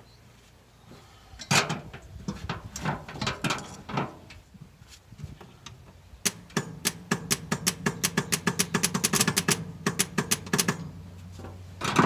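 A few knocks and clatter, then the starter of a 1965 Ford fire truck turning the engine over in a fast, even rhythm for about four and a half seconds before stopping suddenly.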